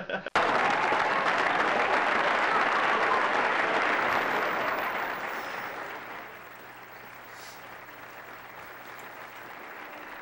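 Audience applause from a television programme, loud at first, fading away between about five and six seconds in and leaving a low hush.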